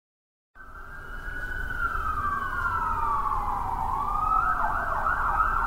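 Emergency vehicle sirens, more than one, starting about half a second in over a steady low rumble: long wails that slide down and back up, crossing each other, then switch to a faster yelp near the end.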